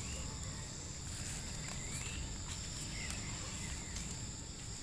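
Insects droning steadily at one high pitch, with a few short faint chirps scattered through.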